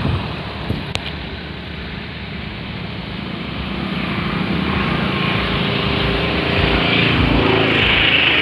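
Wind rumbling on the microphone, with water splashing and dripping as a bamboo-framed lift net is worked in a shallow stream; a louder rush of water right at the start as the raised net drains.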